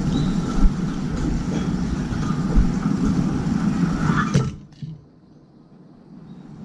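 Steady low rumbling background noise that drops away abruptly about four and a half seconds in.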